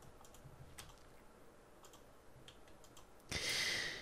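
Faint, scattered clicks of a computer keyboard and mouse. Near the end comes a short, louder rush of noise lasting under a second.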